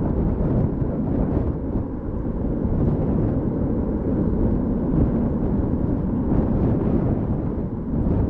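Boeing 747-400 airliner's four turbofan engines running under power on the runway, a deep, steady rumble.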